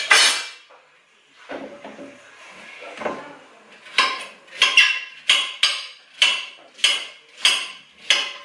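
Kitchen knife cutting pumpkin on a cutting board: a sharp knock at the start, some quieter scraping and slicing, then a steady run of about ten short chopping strokes, roughly two a second, through the second half.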